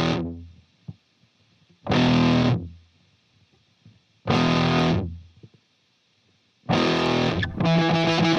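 Background music: distorted electric guitar chords struck in short stabs that ring out and die away, with near-silent gaps between them, then playing continuously from about two-thirds of the way in.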